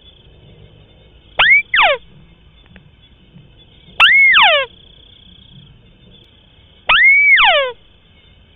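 White-browed crake calling three times, one call every two to three seconds. Each call is a short note that sweeps up, holds, then slides steeply down.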